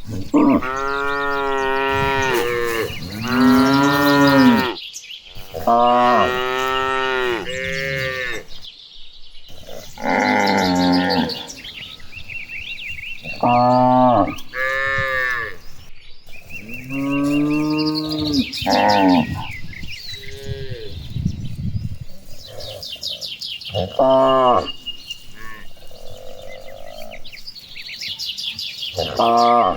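A herd of cattle mooing: a string of long moos one after another, some close together and overlapping, with quieter calls between. Faint high chirping runs underneath.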